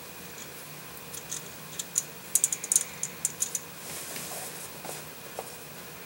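Light clicks and taps of a small plastic transmission wiring connector being handled, with a quick cluster of sharper clicks about two and a half seconds in.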